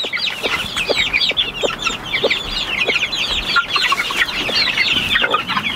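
Newly hatched chicks peeping under a broody hen: many short, high, falling peeps overlapping in a steady chorus.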